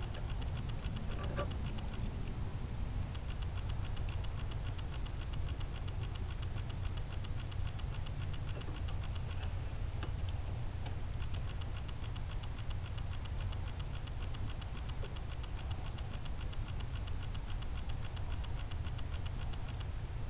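A fast, even, high-pitched ticking that runs in long stretches with short breaks, over a steady low rumble.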